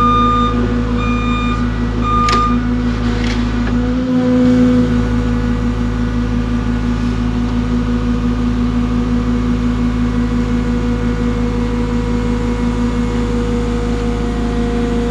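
Cat excavator's diesel engine running steadily, with a few short, high alarm beeps in the first two seconds and a brief rise in the hum about four seconds in.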